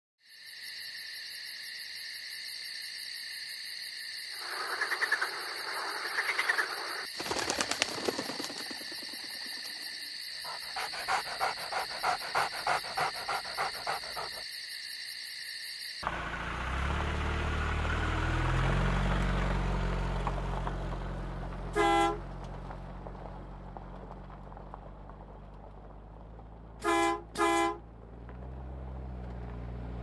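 Produced intro sound effects. In the first half there are steady electronic tones with a fast rhythmic pulsing. Then a low vehicle engine rumble swells and fades, and a car horn honks once, then twice in quick succession near the end.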